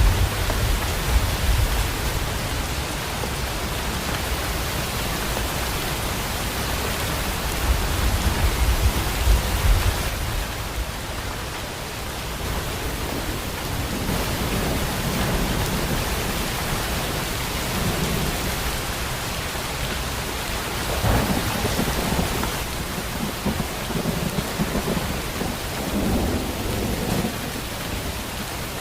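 Steady heavy rain with thunder rumbling low and rolling in and out, the strongest rumbles right at the start and about a third of the way in.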